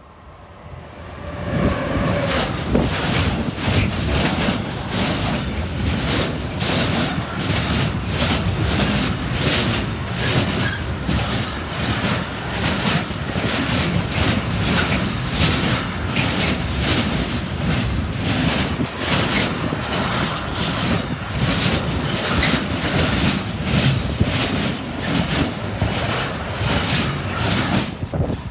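A Siemens Vectron electric locomotive and a long container train pass close by, growing loud within the first two seconds. The steady rumble of wheels on rails carries a rapid, regular clickety-clack as wagon wheelsets roll past, and it drops away right at the end.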